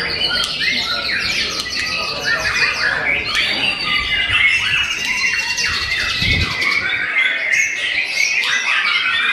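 White-rumped shamas singing, several at once, in fast overlapping phrases, trills and chips.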